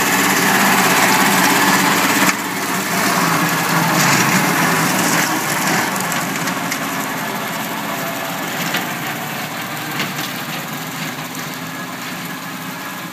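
Small compact tractor engine running steadily while it pulls a PTO-driven mower through tall grass. It grows gradually fainter after about two seconds in as the tractor moves away.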